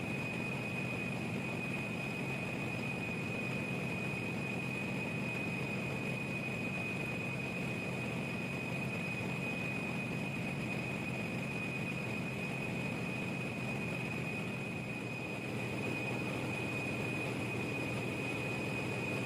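Steady running noise of a large 18-megawatt Wärtsilä generator engine, heard close by in its engine room: an even mechanical din with a low hum and a constant high-pitched whine over it.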